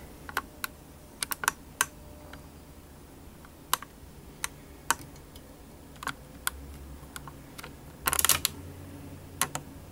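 Scattered light clicks and taps from hands handling the open Mac Mini and its parts, with a short clatter of clicks about eight seconds in.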